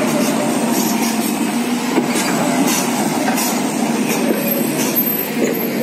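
Large Komatsu PC450 hydraulic excavator running under load as it holds up another excavator's bucket and arm. Its engine and hydraulics make a steady drone, with light metallic clinks now and then.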